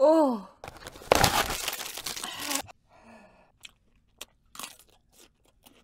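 A woman's short pained cry falling in pitch, from the burn of a very spicy chip, then about a second in a loud, crisp crunching bite into a raw cucumber lasting over a second, followed by a small whimper and faint wet chewing clicks.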